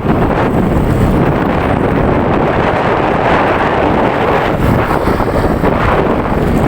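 Wind buffeting the microphone while riding along a highway, a loud, steady rumble with vehicle and road noise beneath it.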